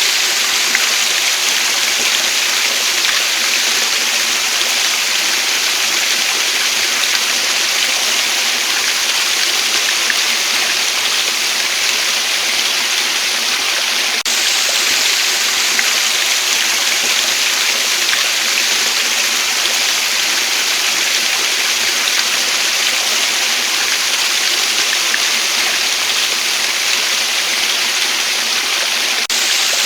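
Waterfall: a steady, unbroken rush of falling water, bright and hissy with little low rumble.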